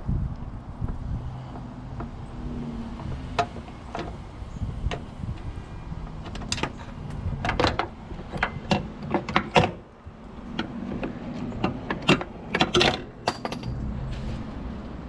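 Irregular sharp clicks and clinks of hand tools and small metal parts being handled, clustered in the middle stretch, over a low steady rumble.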